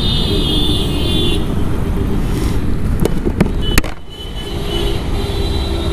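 Motorcycle moving slowly through city traffic: a steady low rumble of engine and road noise. Short high steady tones sound in the first second or so and again near the end, with a few sharp clicks about three to four seconds in.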